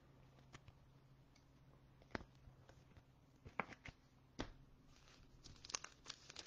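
Near silence with a few faint, isolated clicks; in the last second or so, faint crinkling of a foil trading-card pack wrapper as hands pick it up and start to open it.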